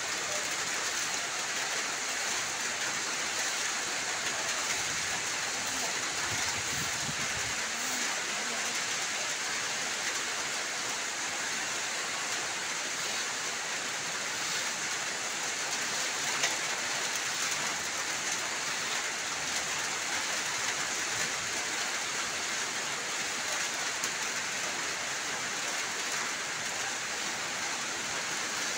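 Steady rain falling on a wet, puddled concrete yard, an even hiss with no let-up. There is a single brief knock about halfway through.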